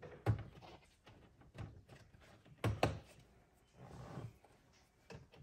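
Hard plastic knocks and clicks as dash trim parts are handled and pressed into place on a UTV dash: a sharp knock just after the start, a double knock near the middle, and a softer rustle about four seconds in.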